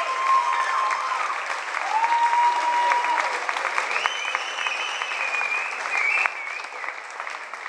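Crowd applauding with dense clapping and voices calling out over it; the clapping thins a little after about six seconds.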